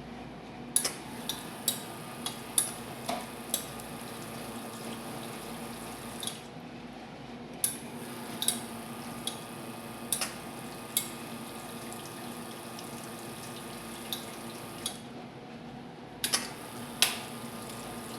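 La Marzocco Classic espresso machine running under test: a steady low hum with water flowing through it, the hiss dropping out briefly twice, and scattered sharp clicks and drips.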